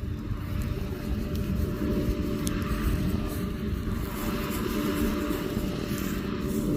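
A steady engine hum over low rumbling noise, with faint scattered clicks.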